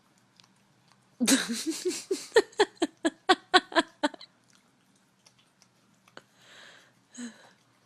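A person laughing hard in a run of quick pulsed bursts for about three seconds, then faint wet licking sounds from a dog.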